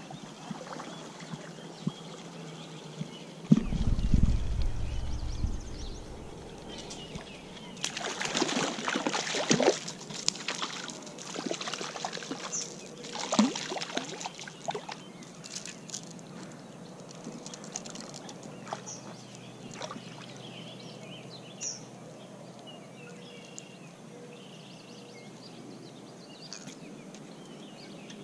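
Stream water splashing and sloshing as a hooked brown trout is landed, with the loudest splashes about eight to ten seconds in and again around thirteen to fifteen seconds. A low rumble on the microphone about three and a half seconds in.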